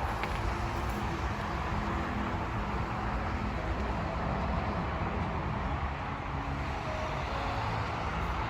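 Steady rumble and hiss of a running motor vehicle and road noise.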